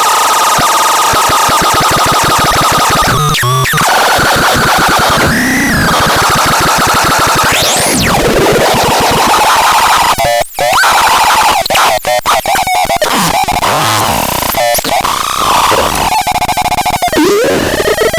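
ABSURDON ML6 electronic noise instrument playing harsh, chaotic synthesized noise. It opens with a held squealing tone, sweeps up and down in pitch, and about eight seconds in gives a sharp rising glide. After that it breaks into choppy, stuttering pulses.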